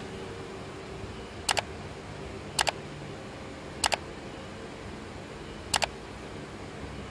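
Four sharp double mouse-click sound effects, spread a second or two apart, the clicks of a like-and-subscribe button animation, over a steady low room hum.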